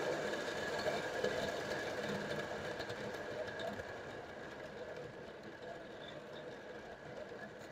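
Vintage Lionel O-gauge steam locomotive and cars running on three-rail track, a steady mechanical whir and rattle of the motor and wheels on the rails, growing gradually quieter.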